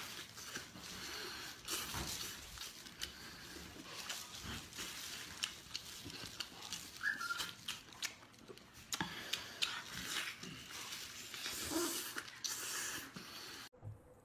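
Close-up sounds of a person eating braised pork belly with big bites: wet chewing, lip smacking and slurping, with irregular clicks and sucking noises. The sound cuts off suddenly near the end.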